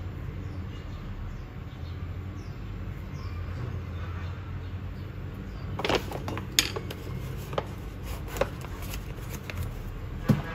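Kraft-paper coffee bag being handled and moved on a counter, giving a run of crackles and light taps over a steady low rumble, with a sharper knock near the end.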